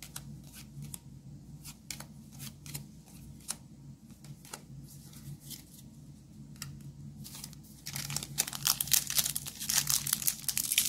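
Light clicks and taps of cards being handled, then, from about eight seconds in, the foil wrapper of a Jumpstart booster pack crinkling and tearing as it is pulled open.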